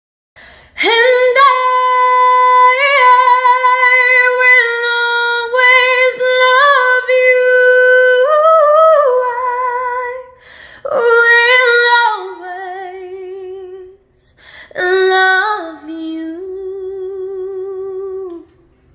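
A woman singing alone with no instruments, holding long notes with vibrato over three phrases that start about a second in; the last phrase is lower and has a wide vibrato.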